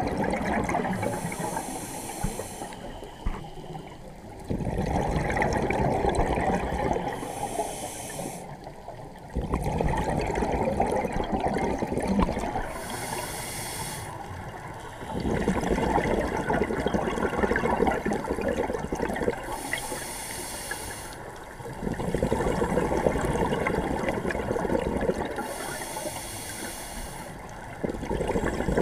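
Scuba diver breathing through a regulator underwater: a short hiss on each inhale, then a long rush of exhaled bubbles. About five breaths, one every five to six seconds.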